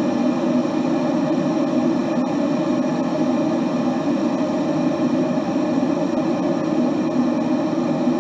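Water boiling hard in a kettle: a steady, low rumbling churn of bubbles that does not let up, with no whistle.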